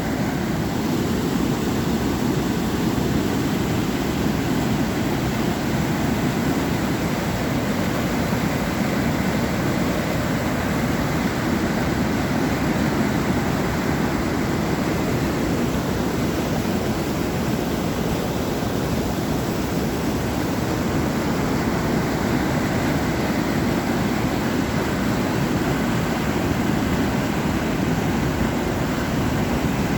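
Water pouring over a dam: a steady, unbroken rushing noise.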